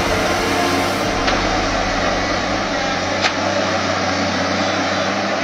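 Excavator's diesel engine running steadily, a constant low drone, with two short sharp clicks about a second and about three seconds in.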